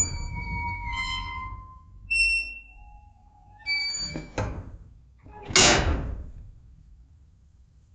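Heavy metal prison cell door squealing and grating as it moves, then clanging shut with a knock at about four and a half seconds and a loud slam about a second later. The slam rings out and dies away in an echoing corridor.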